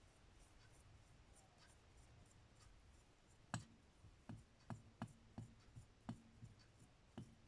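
Faint clicks of small metal parts being handled as a carburetor's cable adjuster and nut are taken off: quiet at first, then about eight light clicks roughly half a second apart.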